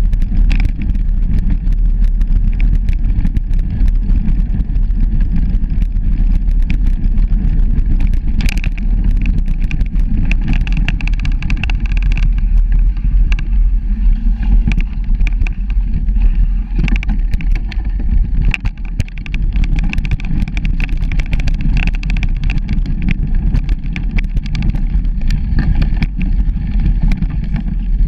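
Riding a bicycle along a leaf-strewn dirt forest trail: wind rumble on the bike-mounted microphone and tyre noise, with frequent small clicks and rattles from the bike over bumps.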